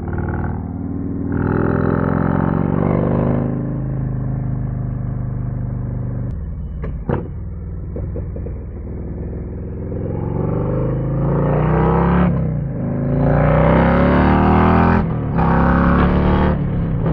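Harley-Davidson Street Glide ST's V-twin heard through a custom C3 Vtwin 2-into-1 exhaust with a titanium can, pulling hard under acceleration. The engine note climbs in pitch and breaks off at each gear change, several times, and is loudest in the last few seconds.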